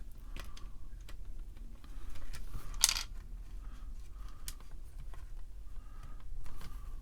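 Small hard plastic parts of a cassette recorder's case clicking and tapping as a broken-off piece is fitted into its slot, with one louder, sharper knock about three seconds in.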